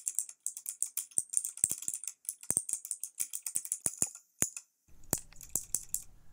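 Rapid typing on a computer keyboard: a quick, uneven run of key clicks that stops about four and a half seconds in. It is followed by a few scattered clicks over a faint low hum.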